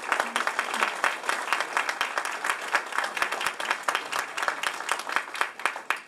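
Audience applauding, a dense patter of many hands clapping that thins and dies away near the end.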